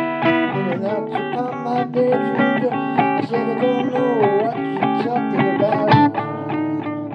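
Blues guitar music: plucked guitar notes and chords played continuously, with some notes bent up and back in pitch.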